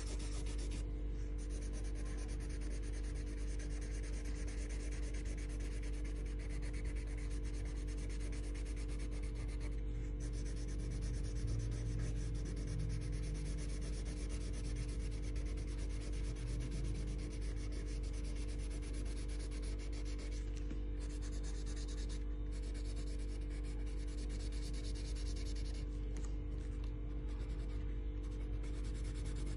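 A colouring tool rubbing on paper as an area is shaded in: continuous rapid back-and-forth scratching strokes, with a few brief pauses, the longest near the end. A steady low hum runs underneath.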